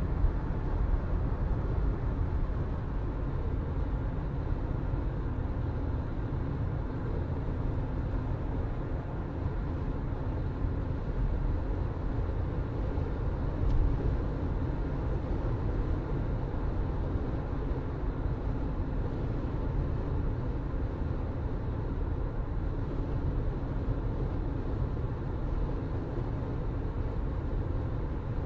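A car driving at a steady pace: even engine hum and road rumble, with one short click about halfway through.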